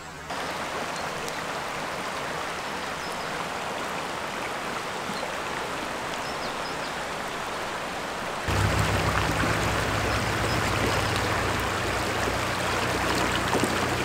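Mountain stream rushing over rocks, a steady wash of water. About eight and a half seconds in it becomes louder and fuller.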